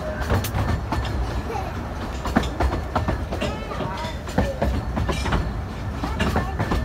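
Carriage of a 15-inch-gauge railway running along the track: a steady low rumble with irregular sharp clicks and clatter from the wheels and rail joints.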